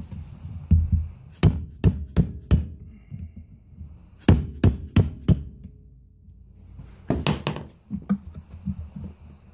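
Hammer blows rapping on a Polaris Sportsman 500's starter motor, which is seized in its bore and rusty around the edge, to knock it loose. Three bursts of sharp metal knocks, about three a second, the last followed by a few lighter taps.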